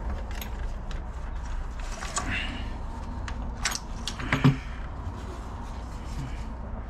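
Throttle body being handled and fitted onto the 5.3L V8's intake manifold: a few light clicks and knocks, the loudest about four and a half seconds in, over a low steady hum.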